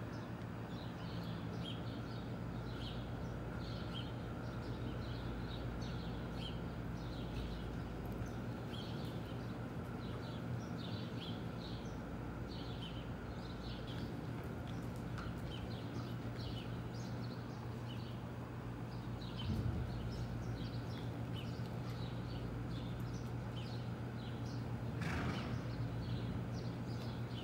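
Small birds chirping over and over in short high notes above a steady low hum, with faint horse hoofbeats on sand footing; a brief louder rush of noise comes near the end.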